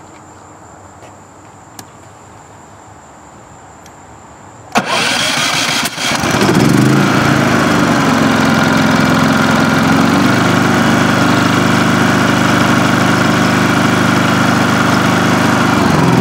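Westinghouse iGen4500 inverter generator's single-cylinder OHV engine starting about five seconds in, catching and running steadily, its pitch settling lower about ten seconds in. It starts with the choke off because the engine is warm; the automatic choke is not engaging.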